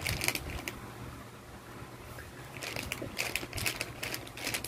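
Soft plastic baby-wipes pack being crinkled and squeezed by hand, crackling in several bursts over a faint steady low hum.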